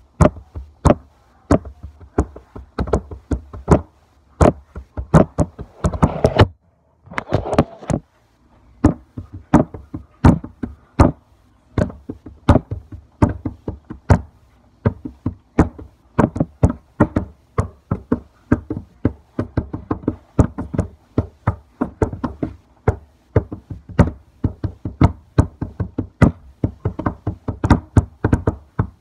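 A child knocking and banging on a hard surface by hand as improvised drumming, sharp hits about three a second in an uneven beat. Two short rushing noises break in about six and seven seconds in.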